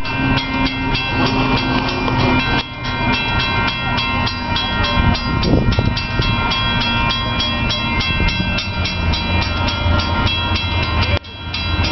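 Railroad grade-crossing bell ringing rapidly and steadily, about four to five strikes a second, over a low rumble from an approaching train. The sound drops out for a moment near the end.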